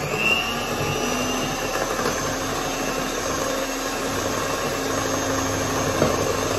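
Electric mixer beating eggs: the motor spins up with a rising whine at the very start, then runs steadily at speed.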